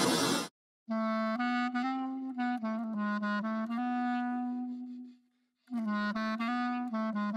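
Background music: a solo melody on a wind instrument, played in short notes, breaking off briefly about five seconds in before carrying on. It opens with a short loud burst of noise in the first half second.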